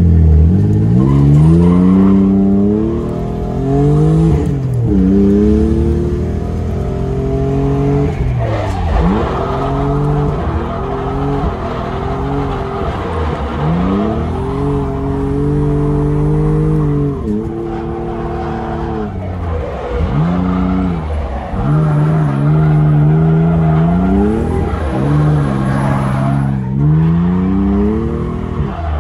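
LS2 V8-swapped Mitsubishi 3000GT drift car's engine heard from inside the cabin, revving up and falling back over and over, every two to four seconds, through a drift run, with tyres squealing and skidding.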